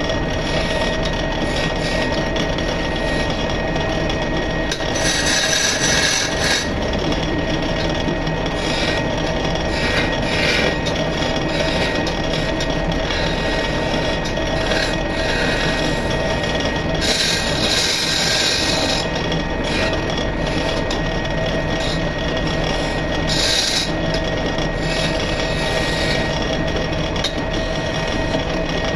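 Wood lathe running steadily as a turning chisel cuts into a spinning wooden cot leg, with bursts of hissing, scraping cutting noise several times, the longest about two-thirds of the way through.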